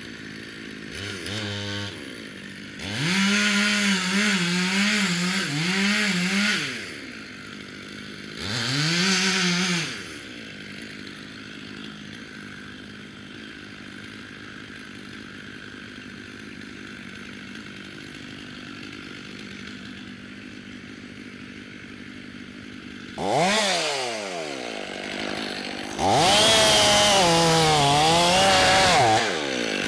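Chainsaw cutting wood, revving up to full speed in several bursts with its pitch wavering under load, and idling between them. A little past two-thirds through it drops sharply in pitch, then revs up again near the end.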